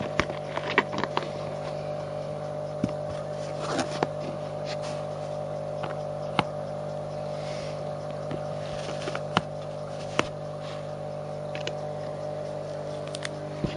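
Steady drone of a vehicle engine heard from inside, with scattered sharp clicks and taps over it.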